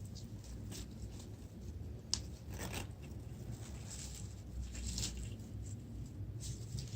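Packaging wrap being pulled and torn off a small potted plant: irregular rustling and crinkling, with a sharp click about two seconds in.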